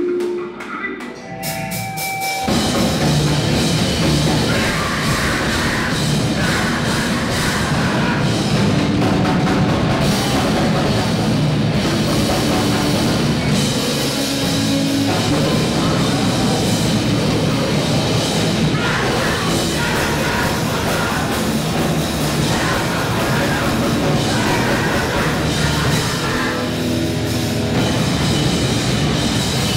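Live grindcore band playing loud and fast: distorted electric guitars, bass and a pounding drum kit. The full band kicks in about two and a half seconds in.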